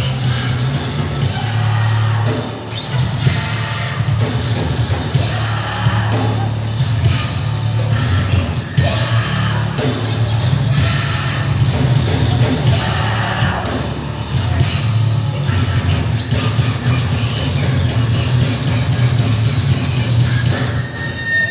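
Heavy metal band playing live: a loud, dense mix of amplified band and heavy bass, with a singer's vocals over it.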